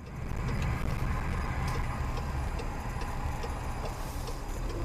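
Cabin noise of a car driving along, recorded by its dashcam: a steady engine and road rumble with a regular light tick a little under twice a second, like the turn-signal relay.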